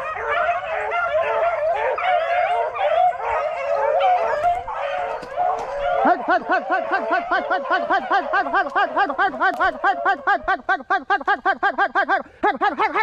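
A pack of beagles baying together on a swamp rabbit's trail, many voices overlapping. About six seconds in, one beagle close by takes over with a fast, steady run of short barks, about four a second.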